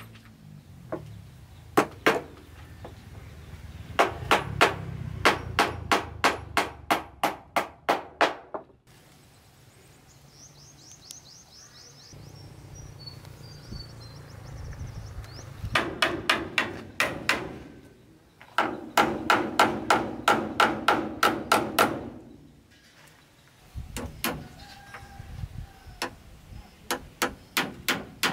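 Hammer driving nails into wooden boards, in quick runs of strikes about three or four a second with pauses between runs; some strikes ring a little.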